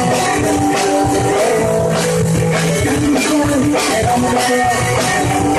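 Loud punk-style rock music: electric guitar playing over a steady drum-kit beat.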